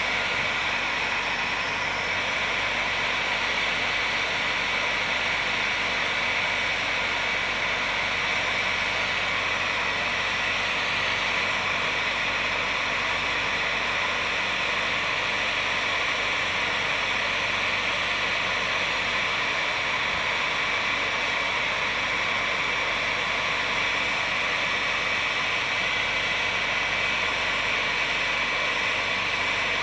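Handheld electric heat gun running steadily, blowing hot air onto a polyethylene kayak hull to soften the plastic for welding: an even rush of air with a thin high whine from its fan.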